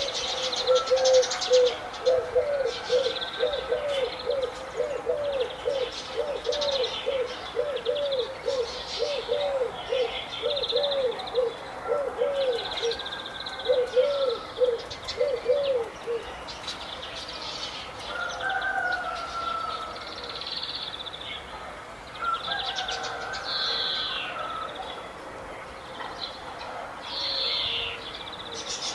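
Several birds chirping and singing, with short high trills and twitters throughout. Under them, a low call repeats about one and a half times a second and stops a little past halfway.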